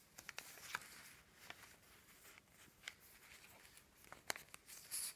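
Faint rustling and scattered light taps of paper pages and cards being handled as a handmade journal insert is leafed through.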